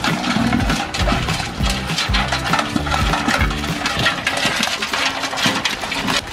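Live crabs clattering and scratching against the inside of a metal bucket as they are shaken out of a sack, a dense run of rapid clicks and rattles.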